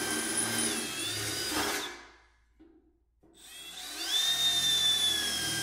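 Electric drill boring holes through the thin sheet steel of an ammo can, running twice with about a second's pause between. Each run is a steady motor whine that sags in pitch as the bit bites into the metal.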